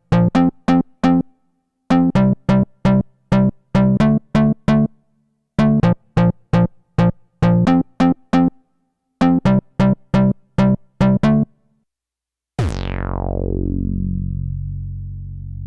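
Nord Stage synthesizer playing Mopho-style patches: runs of short staccato notes in a low register, about four a second, in phrases with brief gaps. Near the end a held note comes in with a bright filter that sweeps quickly downward, then sustains.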